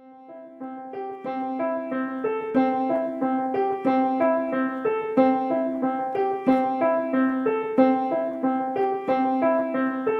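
Background piano music: a gentle, repeating figure of single notes over a held low note, fading in over the first couple of seconds.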